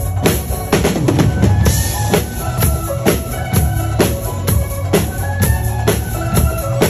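Acoustic drum kit played to a steady beat, kick drum, snare and cymbals struck in time over a backing music track with a bass line and melody.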